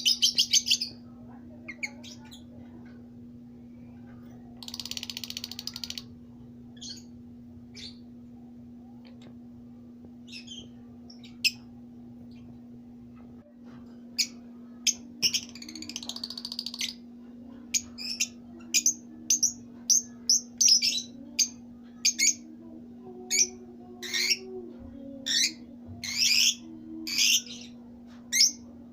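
Fischer's lovebirds calling with short, sharp, high chirps, sparse at first and then coming about twice a second through the second half, with brief buzzy chatter near the start and about five seconds in. A steady low hum runs underneath.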